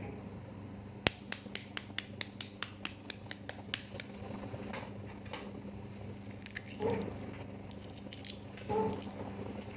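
A quick run of sharp clicks, about four a second, starting about a second in and fading after about three seconds. Two brief softer sounds follow near the end.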